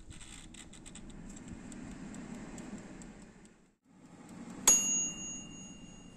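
Air fryer's mechanical timer dial clicking rapidly as it is turned, over the steady hum of the fan. About two-thirds of the way through, the timer bell strikes once, a single bright ding that rings on for over a second, marking the end of the cooking time.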